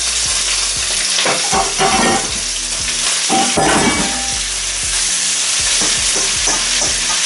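Wok of oil, garlic, chilli and tomatoes sizzling steadily on a hob as chopped spinach is stirred in, with a few short knocks and clinks of the utensil against the pan about one to two seconds in and again near four seconds in.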